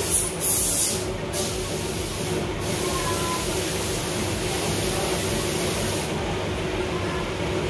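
A steady low rumble, like machinery running, with a few short bursts of hiss in the first few seconds.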